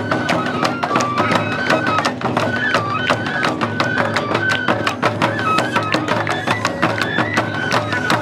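Japanese festival music for a lion dance: a high flute melody stepping between held notes over quick, steady drum strikes.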